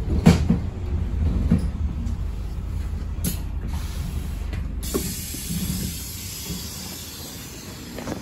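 Bus interior rumble with knocks, then a hiss of air and a clunk as the pneumatic doors open at a stop, about three to five seconds in. After that the engine rumble fades and a steady airy hiss of outdoor street noise remains.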